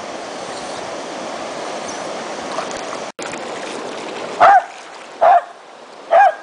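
Rushing water of a waterfall, steady. After a brief cut-out about three seconds in, the water is quieter and three short, loud animal calls come less than a second apart.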